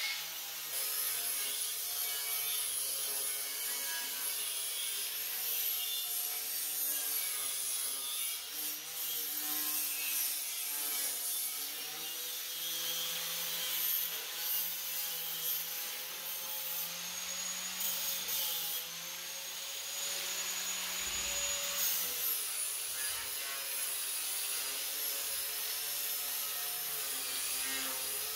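Angle grinder grinding steel square tubing. A steady high motor whine wavers in pitch as the disc is pressed onto the metal and moved along it.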